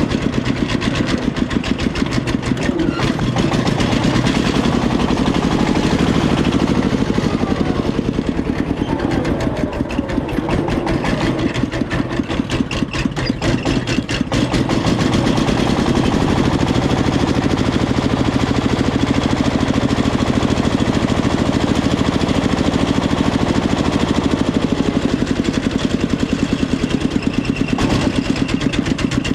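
Diesel engines running steadily with a fast, even chugging, from a working excavator and a công nông farm truck loading soil.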